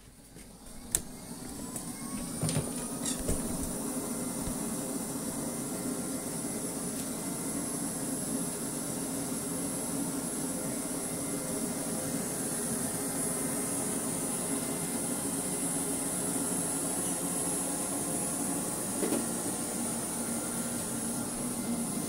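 Vorwerk VR100 robot vacuum cleaner starting a cleaning run: a click about a second in, then its suction fan spins up with a rising whine and runs steadily, with a few knocks in the first seconds.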